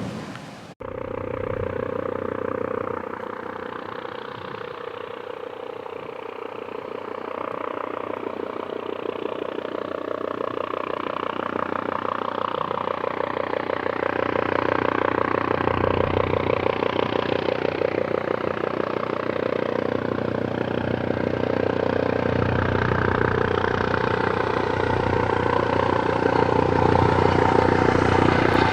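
Airbus Helicopters EC155B1 (H155) helicopter running, its main rotor beating rapidly and evenly over the sound of its turbine engines, growing gradually louder.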